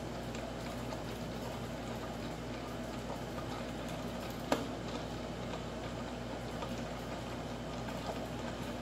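Thick cream mixture simmering gently in a stainless steel bowl on a warmer, a steady low hum with faint bubbling. A single sharp click about halfway through.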